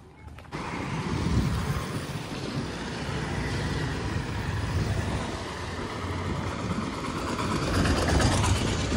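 Street traffic starting abruptly about half a second in: motorcycle and auto-rickshaw engines passing close, over a steady road hum, loudest near the end as the auto-rickshaw goes by.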